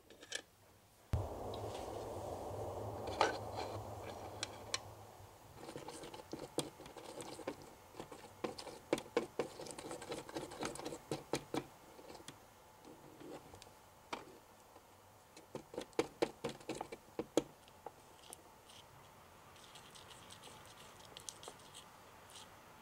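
A small wooden stick stirring and scraping a thick paste in a tiny plastic bowl, making runs of quick clicks and short scrapes that thin out near the end. A steady rushing noise fills the first few seconds.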